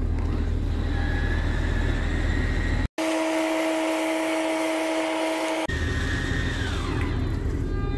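Motorhome slide-out room retracting under power, its drive whining over the steady low rumble of the idling engine. About three seconds in the sound cuts abruptly to a steady two-pitch hum for about three seconds, then the rumble and whine return, the whine falling away near the end as the slide stops.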